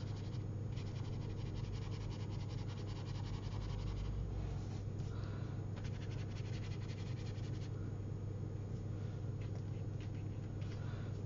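Steady low electrical hum, with the soft scratching of a water brush stroking over watercolour paper on top of it.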